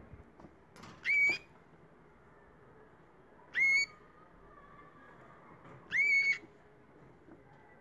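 Canaries giving a whistled call three times, each a short note that sweeps up quickly and then holds briefly, about two and a half seconds apart.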